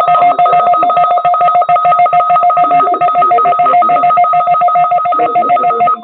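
Emergency alert receiver sounding a loud, steady two-tone attention signal with a fast flutter, as part of an Emergency Alert System test.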